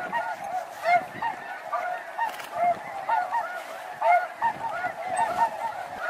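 Flock of snow geese calling: a dense chorus of many overlapping short, high-pitched honks.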